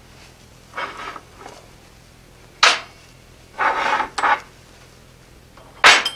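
Steel guillotine-tool die blocks being picked up and set down on a metal bench top: a handful of separate clinks and scrapes of steel on steel. The sharpest come a little under three seconds in and near the end, with a longer clattering cluster around four seconds.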